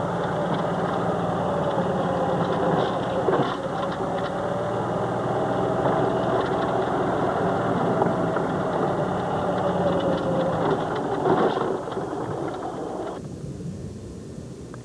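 An engine running steadily with an even hum and a few brief knocks; the sound drops away suddenly about 13 seconds in.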